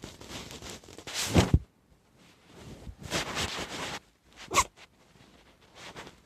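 A domestic cat sneezing: two short, sharp sneezes about three seconds apart.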